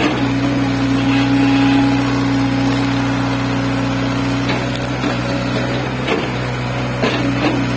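Crawler excavator's diesel engine running steadily under hydraulic load as the bucket digs into soil and brush, with a few light knocks in the second half.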